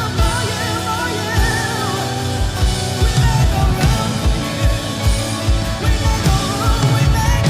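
Live worship band playing loud rock-style music. A drum kit's kick drum pulses steadily and picks up to a quicker, driving beat about a third of the way in, under a wavering high melody line.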